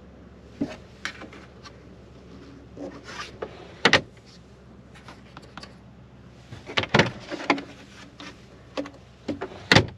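Plastic glovebox lid of a Polestar 2 being opened and shut by hand: scattered light clicks and rubbing, with three loud latch clacks spread through, the last near the end.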